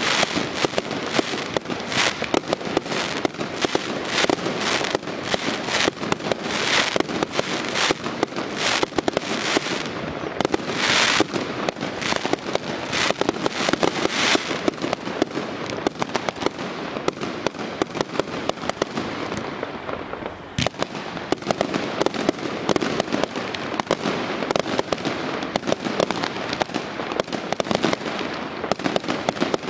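Fireworks bursting in a dense barrage: rapid bangs and crackling, many reports a second, with a short lull about two-thirds of the way through.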